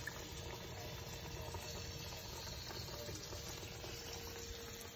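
Oil sizzling steadily in a skillet as breaded green tomato slices fry, with a faint steady hum underneath.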